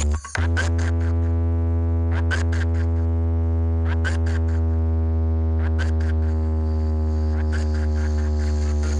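Electronic DJ remix played loud on a DJ sound system: a long held deep bass tone with a buzzing stack of overtones, with sliding synth sweeps and light ticks repeating over it. Choppy stuttering bursts of the track give way to the held tone just as it begins.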